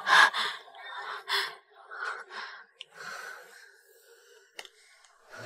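A young woman gasping and breathing hard in distress, about one breath a second, each breath quieter than the last. A short click sounds near the end.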